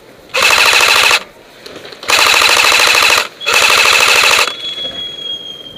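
Airsoft electric rifle firing three full-auto bursts of rapid, even clicks, each about a second long, with short pauses between them.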